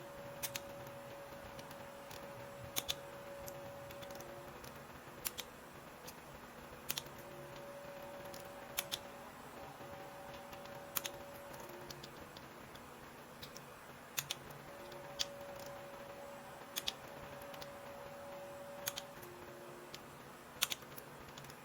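Torque wrench clicking sharply as primary cover bolts are brought up to about 13 N·m, a click or a quick double click every second or two.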